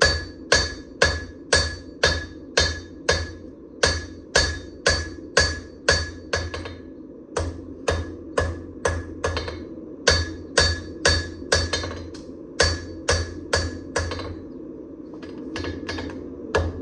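Hand hammer striking hot damascus steel on an anvil in a steady rhythm of about two blows a second, each with a bright metallic ring. Near the end the blows pause briefly, then pick up again.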